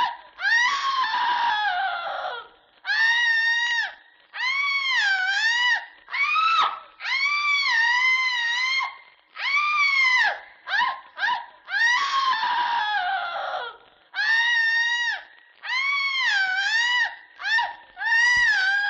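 A recorded sound effect of shrill wailing cries, repeated about fifteen times with short gaps. Each cry lasts up to a second or so; some waver in pitch and some slide downward.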